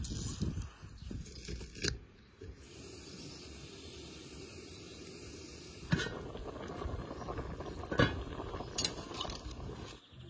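Food-preparation handling: a metal garlic press squeezing over an enamel bowl, then a cloth rubbing over a cast-iron pan. Several sharp metal clinks and scrapes stand out along the way.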